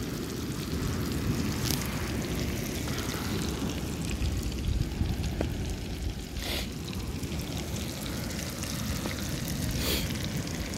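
Steady low rumbling outdoor noise with no clear single source, broken by three faint brief hisses.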